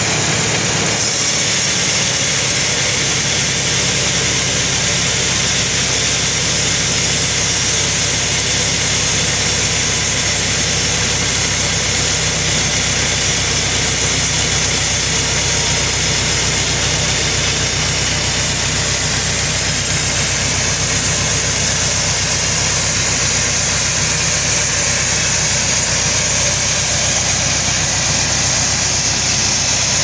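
Band sawmill running and cutting lengthwise through a large albasia log: a steady machine hum under an even, high sawing noise that comes in about a second in and holds.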